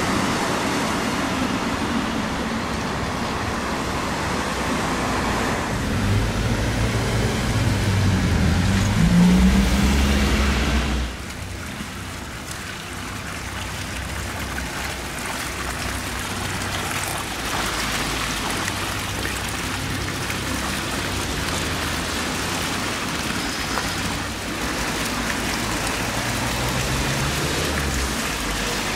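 Street traffic for the first ten seconds or so, with a vehicle's engine rising in pitch as it passes. About 11 s in the sound changes abruptly to a steady splash of a fountain: water spilling from a granite bowl sculpture and falling into a shallow stone basin.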